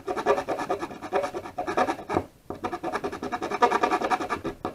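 A small tool scraping sticky adhesive backing off a lithium battery's terminal, to clear it so the battery can make contact. The strokes come in quick back-and-forth rasps, with a short pause about halfway through.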